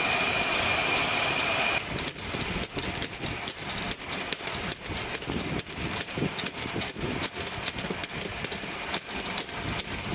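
Automatic air bottle washing machine running: a steady rush of mechanical noise with a high whine, then from about two seconds in, many irregular clinks and rattles of bottles knocking together as they move through it.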